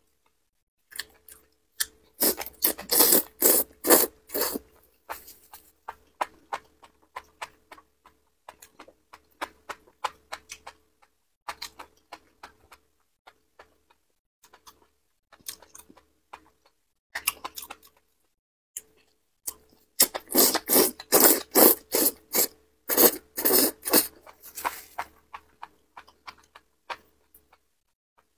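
Close-miked eating of enoki mushrooms in chilli sauce, picked up on a clip-on mic: two long runs of loud, rapid slurping as strands are drawn in, one about two seconds in and one about twenty seconds in, with quieter, scattered chewing clicks between.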